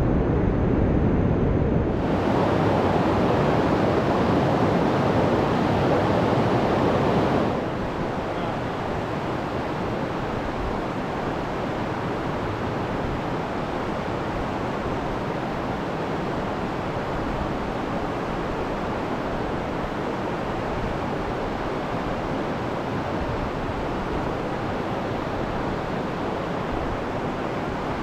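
Steady rushing of water pouring over a small rocky cascade into a river pool, a little quieter from about seven and a half seconds in.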